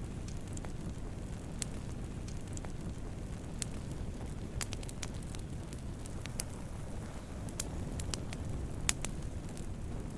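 Campfire of burning wood crackling: a steady low rush of flames with irregular sharp pops and snaps, the loudest about nine seconds in.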